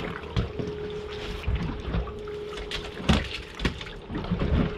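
Water sloshing and slapping against the hull of a drifting fishing boat, with irregular knocks, one sharper than the rest about three seconds in. A steady hum runs underneath until near the end.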